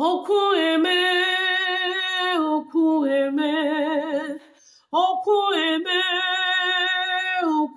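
A woman singing a gospel worship song solo into a microphone, with no accompaniment heard. She holds long notes with vibrato in drawn-out phrases, with a short breath pause a little after the middle.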